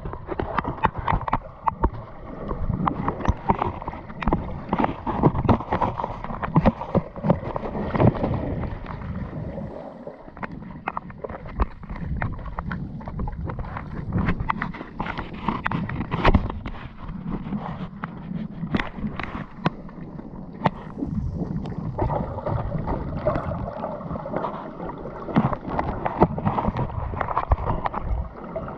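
Sea waves lapping and splashing, with gurgling water and many irregular sharp slaps.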